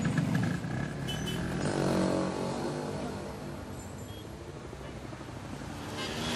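City street traffic from a film soundtrack: motor vehicles passing. One engine sweeps past with a falling pitch about two seconds in, and another grows louder near the end.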